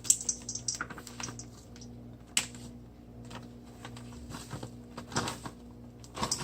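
Light, irregular clicks and taps of kitchen utensils and containers being handled against a mixing bowl, a quick run of them at first and another cluster near the end, over a faint steady hum.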